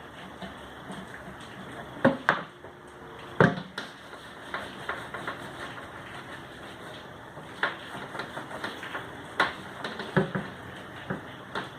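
Scattered knocks and clacks of hard objects being handled and set down, irregular and unevenly spaced, a few sharper and louder than the rest, over a steady faint hiss.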